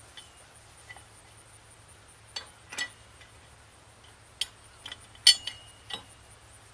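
Sharp metallic clinks of a long pipe wrench on galvanized steel pipe, as the wrench is repositioned and turned on the array frame's horizontal pipe. There are about seven clinks, some with a brief ring, the loudest a little past the middle.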